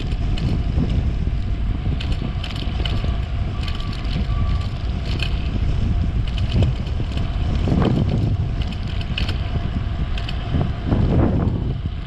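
Wind rushing over a chest-mounted GoPro's microphone as a bicycle rolls along a paved road: a steady low rumble, with scattered faint high ticks in short clusters.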